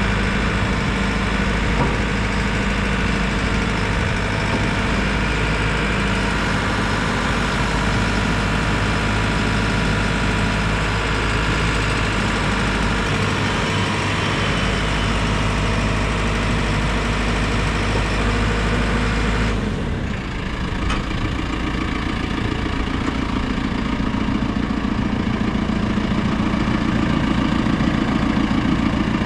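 JCB 4CX backhoe loader's diesel engine running steadily. About two-thirds of the way through the sound changes abruptly, the higher sounds dropping away and a lower hum coming forward.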